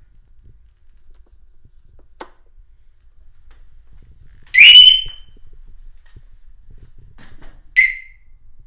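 A switch click, then two loud electronic chirps from the Harley-Davidson's alarm siren as the bike is switched on. The first rises and holds a high tone for about half a second; the second, near the end, is short.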